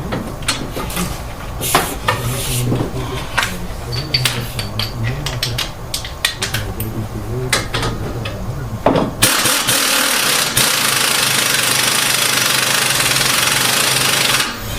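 Metal tool clinks and knocks while working on a car's strut bolts. About nine seconds in, an impact wrench runs steadily for about five seconds and then stops.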